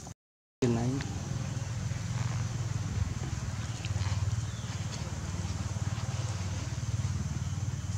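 Steady low engine rumble of a motor vehicle running, after a brief dropout near the start. A short falling squeak comes just after the sound returns.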